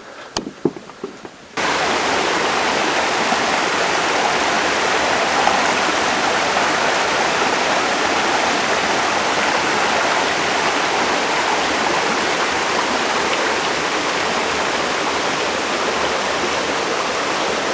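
Waterfall rushing, a loud, steady pour of water that begins abruptly about a second and a half in, after a few light clicks.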